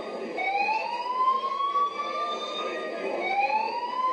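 Fire alarm sounding a slow rising whoop: each sweep climbs steadily for about three seconds, then drops back and starts again.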